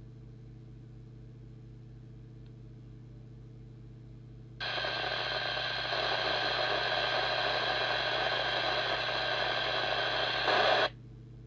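Midland M5 CB radio's speaker bursts into loud static hiss about four and a half seconds in, holds for about six seconds, then cuts off abruptly: the scanning receiver has stopped on an active channel and opened its squelch.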